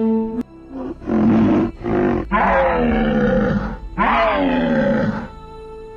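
Dinosaur sound effect for an Ankylosaurus: a string of about five growling roars, their pitch wavering and falling, stopping about a second before the end. Half a second in, a held horn-like honk, the Parasaurolophus call, cuts off.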